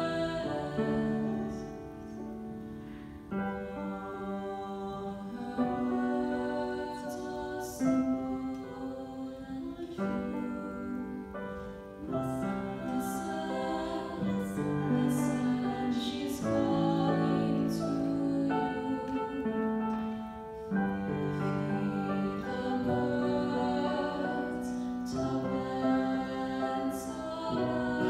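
A girl and a woman singing a duet, mostly in long held notes, with piano accompaniment.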